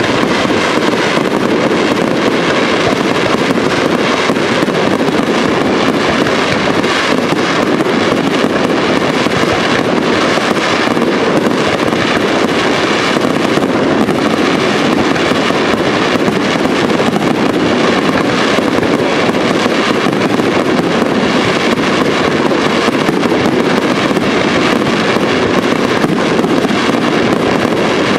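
Aerial fireworks display at full barrage: many shells bursting one over another, a dense, unbroken mix of bangs and crackling with no pause.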